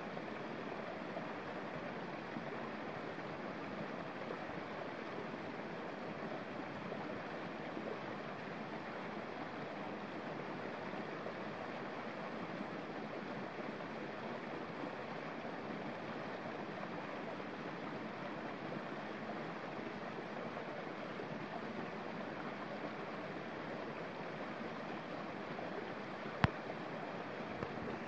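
Small stream cascading over rocks in a little waterfall: a steady, even rush and splash of water. One sharp click near the end.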